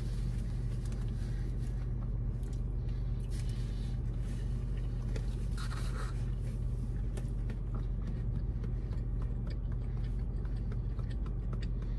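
Steady low hum of a car cabin, with faint rustling and small clicks of food wrappers and napkins as someone eats, a brief louder rustle about halfway through.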